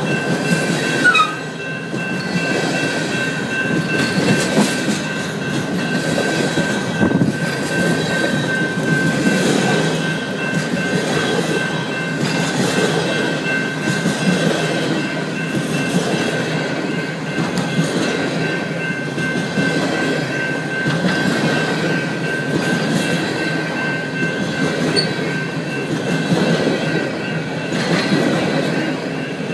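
Hopper cars of a long freight train rolling past close by: steady rumble of steel wheels on rail with clickety-clack over the joints and a steady high-pitched tone over it, and a short falling whine about a second in.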